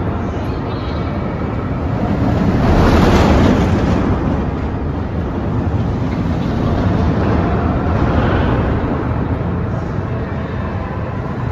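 Sandy's Blasting Bronco steel roller coaster train on a test run, rushing along the track overhead. Its noise swells as it passes, loudest about three seconds in and again near eight seconds.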